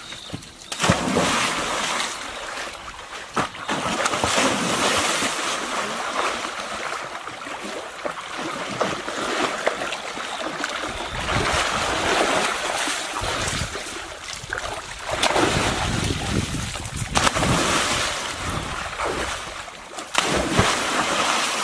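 Water splashing and sloshing in uneven surges, with a few sharp knocks.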